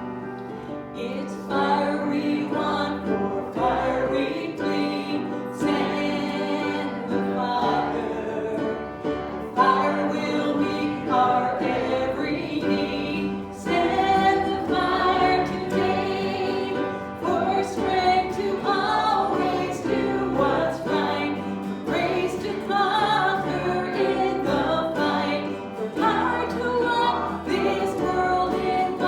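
Church congregation singing a hymn together, a steady choral sound of many voices holding sung notes.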